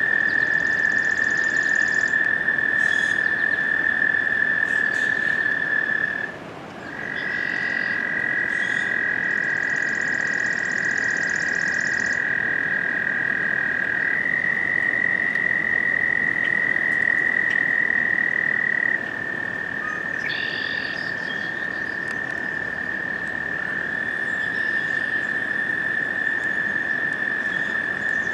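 American toads trilling: long, steady high-pitched trills, two toads at slightly different pitches overlapping for a while, with a brief break about six seconds in. Faint higher chirps sound over the top.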